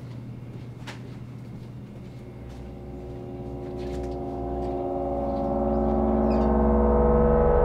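Film score fading in: a sustained gong-like drone of several held tones swells steadily louder through the second half. Before it, a low hum with a few faint clicks.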